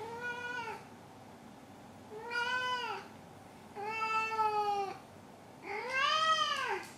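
Domestic cat meowing four times, each meow drawn out for about a second. The last meow is the loudest and rises then falls in pitch. He is meowing with a just-caught toy held in his mouth.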